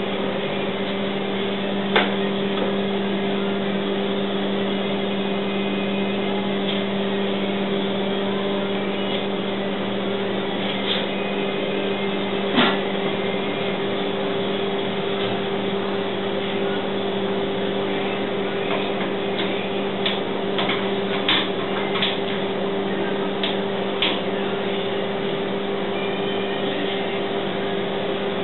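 A steady machine hum runs throughout. Scattered light clicks and knocks of tools and metal being handled come over it: one about 2 seconds in, one near the middle, and a quick run of them a little later.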